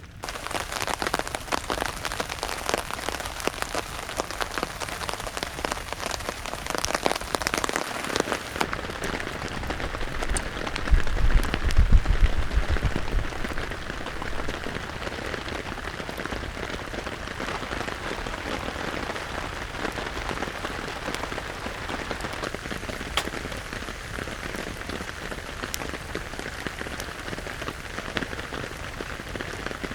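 Heavy rain falling steadily, with many individual drops ticking on a nearby surface. The sound turns duller about nine seconds in, and a brief low rumble comes in around eleven seconds in.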